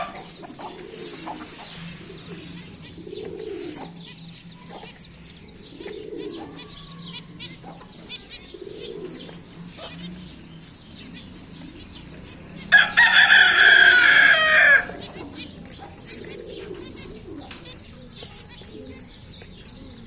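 A rooster crows once, loudly, for about two seconds, a little past the middle. Around it come a low cooing that repeats every couple of seconds and many faint high chirps from small birds.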